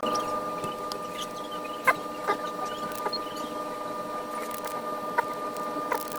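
Fuel injector test and calibration machine running with a steady electrical hum, with a few sharp clicks scattered through it.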